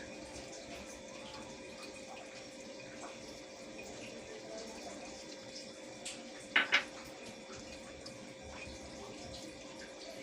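Dal makhani simmering in its pot, with a steady bubbling hiss and a faint steady hum. Two quick sharp knocks come about six and a half seconds in.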